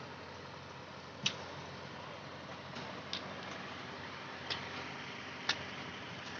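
Four or five short, sharp knocks at uneven intervals over a steady background hiss.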